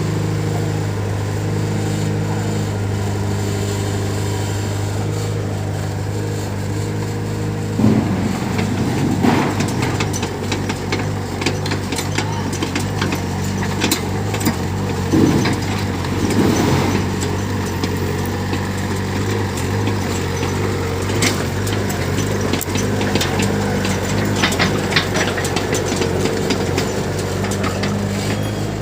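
An engine running steadily with an even hum. Scattered knocks and clatter join it from about eight seconds in.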